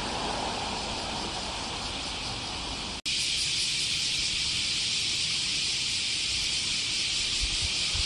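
Dense chorus of bear cicadas (kumazemi, Cryptotympana facialis) as a steady, high-pitched shrill. It drops out for an instant about three seconds in and comes back louder. A low rushing noise lies under it before the dropout.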